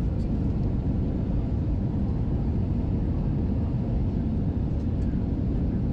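Steady low roar of an Airbus A320 airliner's engines and rushing air, heard inside the passenger cabin during the approach, with a faint steady hum.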